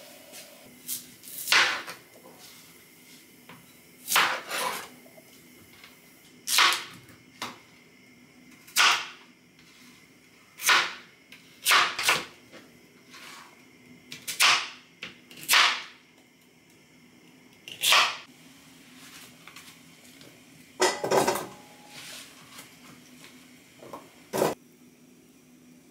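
Kitchen knife chopping a daikon radish into chunks on a plastic cutting board: about a dozen sharp chops, a second or two apart.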